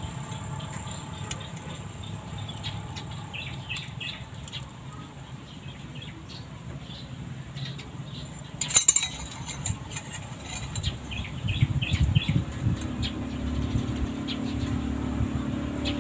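Hands handling a short stainless-steel pipe section and a steel ruler, with scattered light clicks and one sharp metallic clack about halfway through, over a steady low background rumble that grows louder near the end.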